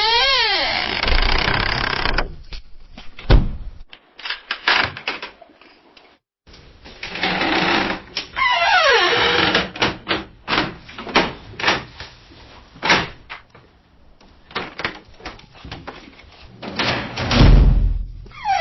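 A door creaking open and closed several times: its hinges creaking in wavering, rising and falling squeals, mixed with clicks, knocks and heavy low thuds.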